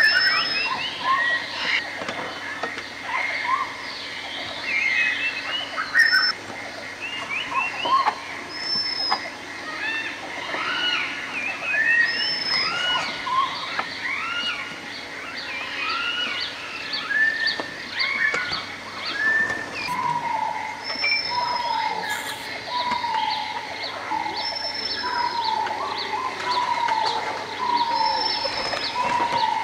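Several woodland songbirds calling and singing at once: many short arching chirps, a high falling whistle repeated about every two seconds, and from about twenty seconds in, a run of lower falling notes about once a second.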